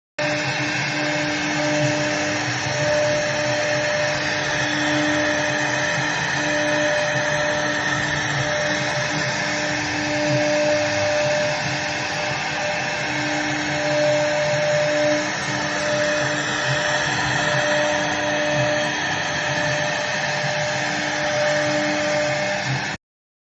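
CNC router spindle running as it cuts wood: a steady noisy whir with a hum that drops in and out, cutting off suddenly near the end.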